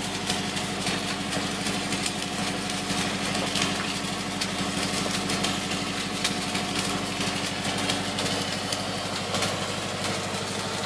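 An engine running steadily at an even speed, under the dense crackle and spatter of arc welding on a steel pipeline repair sleeve.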